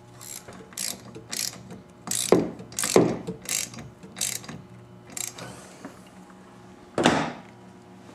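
Hand ratchet wrench clicking in about eight short strokes, roughly half a second apart, over the first five seconds. A single louder knock follows about seven seconds in.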